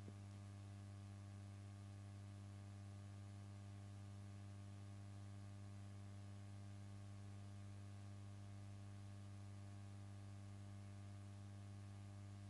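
Near silence with a faint, steady low hum and its overtones.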